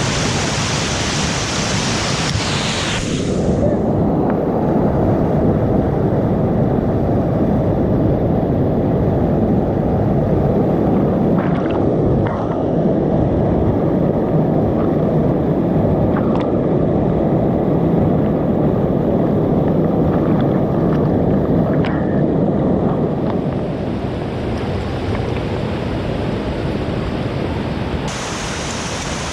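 Whitewater pouring over a small drop, heard close up and loud. About three seconds in the sound turns dull and low, with a few faint knocks, then brightens again near the end.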